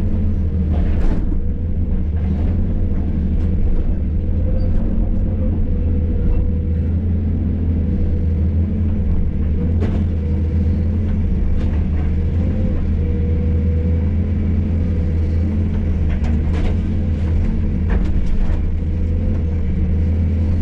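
Hydraulic excavator's diesel engine running steadily, with a fainter steady higher tone over the low rumble. A few scattered knocks and clatter from the demolition work, several of them close together near the end.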